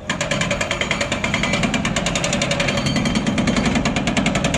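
Concrete breaker hammering on concrete, starting suddenly with rapid, even blows of about ten a second over a low steady drone.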